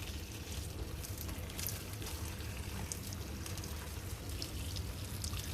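Herbal tea being poured steadily into a cooking pot, a continuous pour with small faint ticks of liquid.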